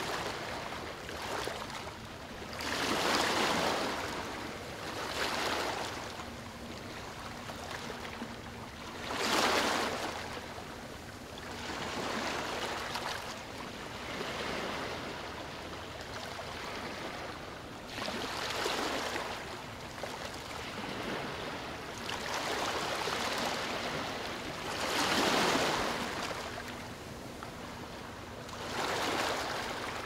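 Small waves lapping and breaking on a sandy beach, a steady wash that swells into a louder surge every few seconds as each wave comes in, then fades.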